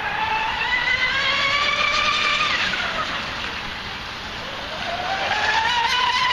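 High-pitched electric whine of a Drifter MK2 RC speed boat's Leopard 4074 2150kv brushless motor running at speed. The pitch climbs, falls sharply about two and a half seconds in, then climbs again from about five seconds in as the boat runs back.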